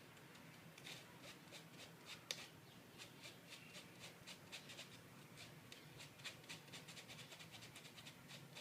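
A spoon scraping flour and cocoa through a wire mesh strainer, pushing the lumps through: faint, rapid scratching strokes, several a second.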